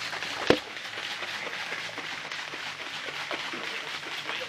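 Protein shaker bottle being shaken hard, liquid sloshing and rattling inside in a quick, fairly even rhythm, with one sharp knock about half a second in.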